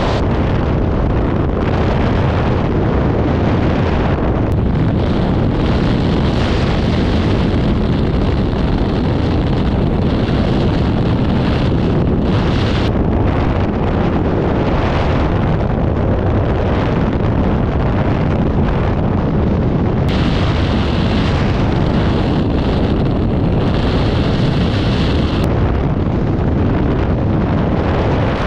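Loud, steady rush of freefall wind buffeting a GoPro's microphone during a skydive.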